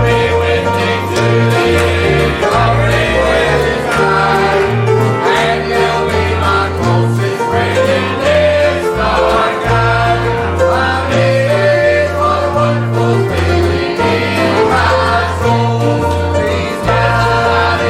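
Gospel song in a country-bluegrass style: voices singing over guitar with a bass line stepping from note to note about twice a second.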